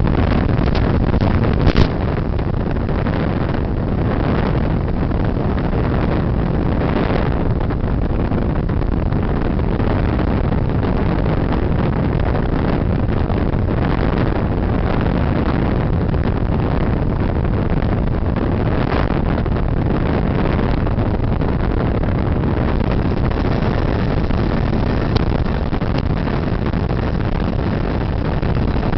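Steady rush of wind and propeller noise from an FPV model plane in flight, loud and even, with a brief click about two seconds in.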